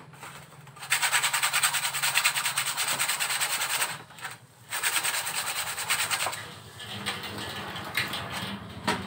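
Steel blade being sharpened on a whetstone: quick back-and-forth scraping strokes, about five a second, in two runs with a brief pause about four seconds in, then fainter rubbing.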